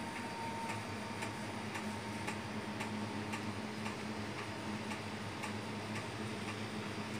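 Steady, regular ticking, about two ticks a second, over a low steady hum.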